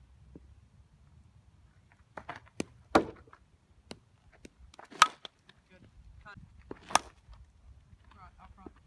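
Softball bat hitting tossed softballs in batting practice: three sharp cracks about two seconds apart, the first the loudest.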